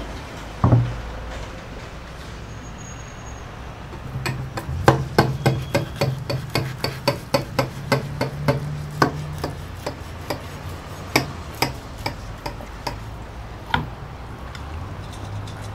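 A glass baking dish is set down on a wooden cutting board with one knock. A few seconds later a knife cuts the baked casserole, its blade clicking sharply against the glass dish in a run of taps, about three a second, that thins out near the end.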